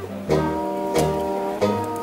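Background music led by a plucked string instrument, with a new note or chord struck every half second or so over low bass notes.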